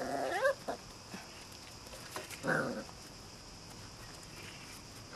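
Labrador puppies yelping as they play-fight: a short rising yelp right at the start and another short yelp about two and a half seconds in.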